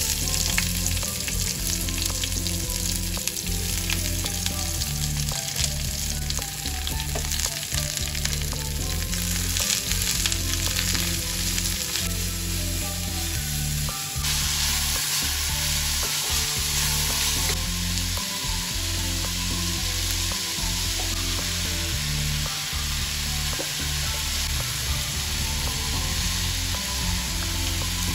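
Sliced red onions frying in hot oil in an aluminium pot, a steady sizzle with a wooden spoon stirring through them; the sizzle grows louder about halfway through as they are stirred. Soft background music plays underneath.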